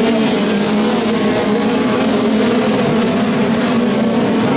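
Several autocross cars racing on a dirt track, their engines held at high revs, with several engine notes overlapping steadily.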